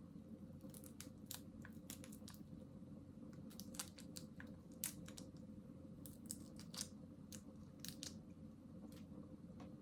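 Faint cracking and crackling of cooked shellfish shell being broken and picked apart while eating: a scattering of short sharp clicks over a steady low hum.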